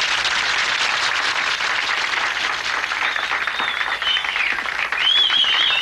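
Audience applauding, with high, wavering cheers rising over the clapping from about three seconds in and loudest near the end.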